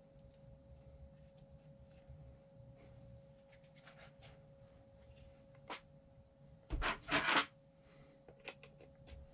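Small parts of a suspension seatpost handled by hand: light clicks and rubbing, then a short clatter of several quick knocks about seven seconds in. A faint steady hum sits under it all.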